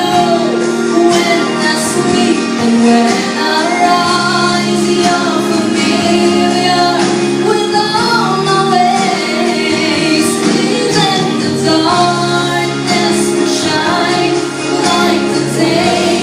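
A song with a female singing voice over sustained instrumental accompaniment.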